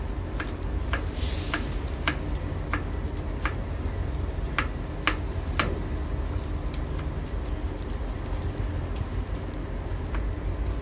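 Knife chopping on a cutting board: sharp taps roughly every half second, over a steady low rumble, with a brief hiss about a second in.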